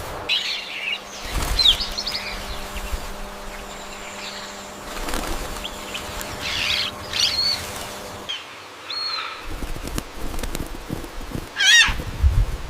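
Indian peafowl calling in short, scattered cries, with wing flaps and rustling between them. A sharp wavering call comes near the end.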